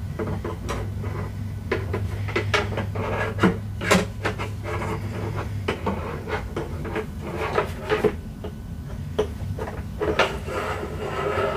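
Hard plastic RC boat parts and packaging being handled: a run of small clicks, knocks and rubbing, with a louder knock at the very end.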